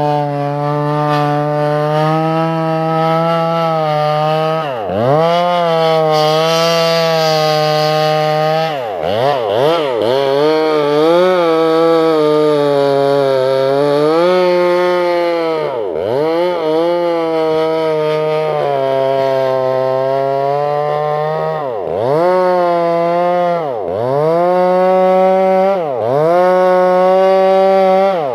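Sumura chainsaw with a 24-inch bar running at high revs while cutting lengthwise through a log, its engine note dipping sharply and picking back up every few seconds.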